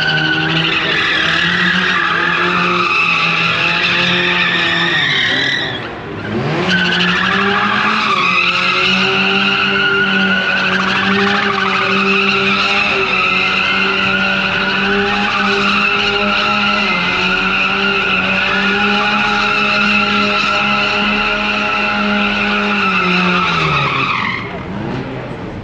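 Drift car engine held high in the revs while its tyres squeal through a long slide. About six seconds in, the engine note drops briefly and sweeps back up, then holds steady until it falls away near the end.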